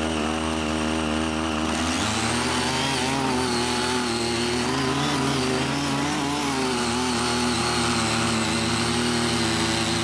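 Small 48.6 cc engine of a CY50 mini rotary tiller running under load, its pitch wavering up and down as the six tilling blades dig into untilled soil.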